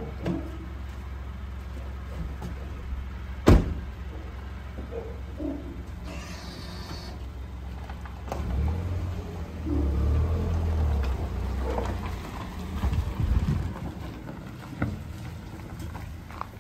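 A car door shuts with one sharp thump over the low hum of a Jeep Renegade's engine. About 8 seconds in, the engine note picks up as the SUV pulls slowly away.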